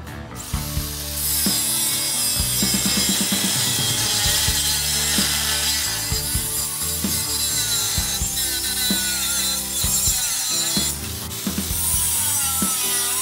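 A 4-1/2-inch angle grinder cutting through the steel extension of a lawn tractor's clutch frame, throwing sparks. It spins up about half a second in and runs steadily, easing off briefly around ten seconds in, and its pitch wavers near the end as it bites into the metal.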